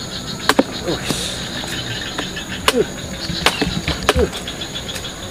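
A handful of sharp chopping knocks, a second or so apart, as a blade cuts into the husk of a young green coconut, each followed by a short falling squeak. Insects buzz steadily behind.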